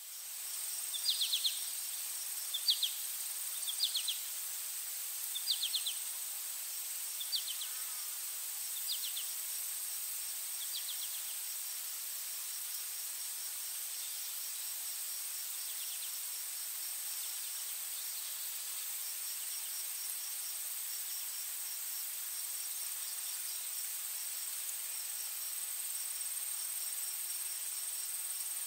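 Insects, cricket-like, chirping and trilling: a steady high-pitched trill, with short rapid-pulsed chirps about every second and a half for roughly the first ten seconds, then fainter.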